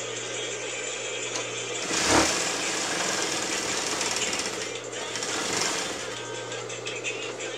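Juki industrial lockstitch sewing machine stitching at speed in one run of about four seconds, starting about two seconds in, easing briefly near five seconds and stopping about six seconds in, over a steady low motor hum.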